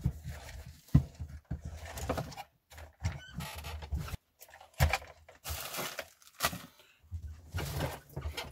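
Handling noise as plastic RC model trucks are slid and set down on a wooden desk, with several sharp knocks, the clearest about a second in and again near five and six and a half seconds.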